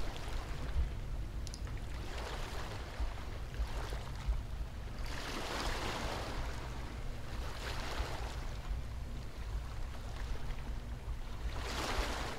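Ocean surf: waves washing in and drawing back, rising and falling in several slow swells over a steady low rumble.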